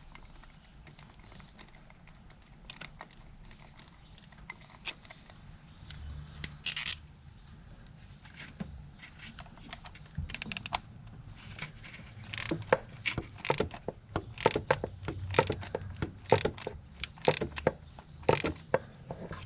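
Socket ratchet clicking as a spark plug is run down into the cylinder head. It starts quiet, with a few short clusters of clicks, then gives repeated bursts of pawl clicks in the second half as each swing of the handle is reset.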